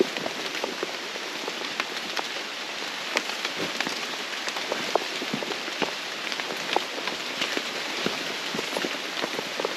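Steady rain falling in tropical rainforest, an even hiss dotted with many separate sharp drop hits close by.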